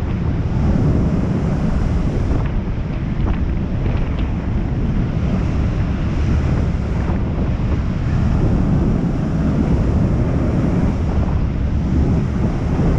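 Steady wind buffeting the microphone on the open deck of a ferry under way, over the rush of the ship's churning wake.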